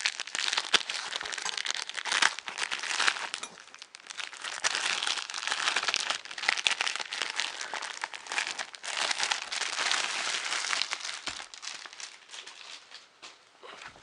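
Plastic packaging crinkling and crackling in uneven bursts as it is handled and pulled open, with sharp clicks among the rustle; it dies down over the last couple of seconds.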